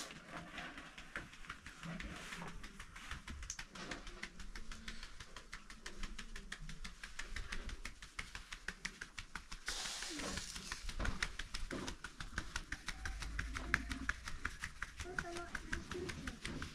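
Flour being sifted by hand through a wooden-rimmed drum sieve, shaken back and forth: a fast, even rattle of light ticks from the sieve.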